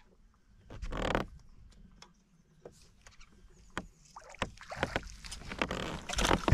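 A hooked smallmouth bass thrashing and splashing at the surface as it is fought to the boat and swung aboard, heard as a run of sharp clicks, knocks and splashes that builds over the last two seconds. A short rush of noise comes about a second in.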